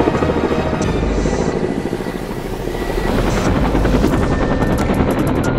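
Helicopter sound effect: rotor blades chopping in fast pulses over engine noise as the helicopter lifts off and flies. The sound eases briefly in the middle, and a quick run of sharper ticks comes in near the end.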